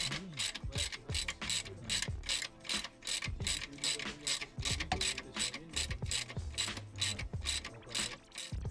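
Hand ratchet wrench clicking steadily as a bolt is turned, about four to five clicks a second.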